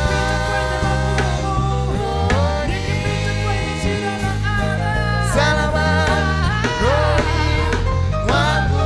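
Gospel praise song: singing over a band with a steady bass line.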